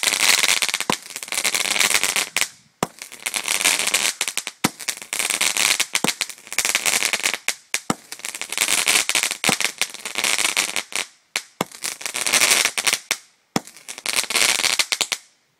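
Firework crackling and popping in about six bursts, each two to three seconds long with brief breaks between, sharp bangs mixed in. It stops suddenly near the end.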